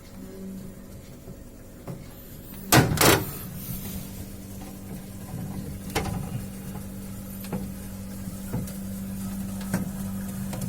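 Refrigerator compressor humming steadily after starting up, on a unit overcharged with freon. Two loud knocks come about three seconds in, with a few fainter clicks later.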